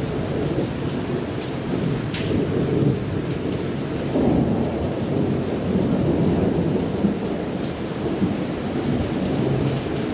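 Thunderstorm: steady rain under a continuous low rumble of rolling thunder, with a few single drops splashing close by.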